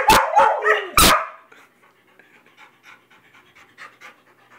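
Pet dogs, a vizsla and a weimaraner, barking on the 'speak' command: about four loud, sharp barks in quick succession in the first second, then steady panting.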